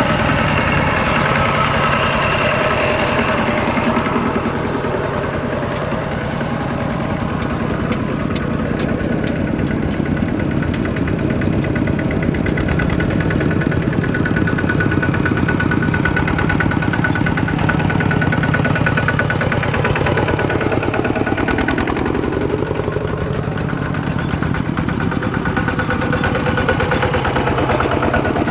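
Tractor engine running steadily and loudly, its speed changing, rising and falling near the end, as it works through deep mud.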